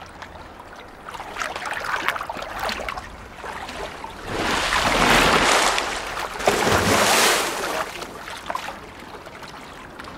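Water splashing and sloshing in a dolphin tank as the dolphins move through it, with two louder rushes of splashing about four and six and a half seconds in.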